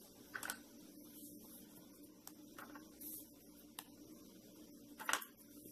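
Faint handling of hardened chocolate coating as it is broken off and picked away from the base of a chocotone on a tray: a few light clicks and taps, one about half a second in and the loudest near the end.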